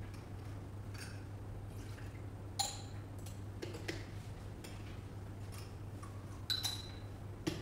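Altar vessels clinking as wine and water are poured into the chalice: two sharp, ringing clinks, one about a third of the way in and one near the end, with small taps between, over a steady low hum.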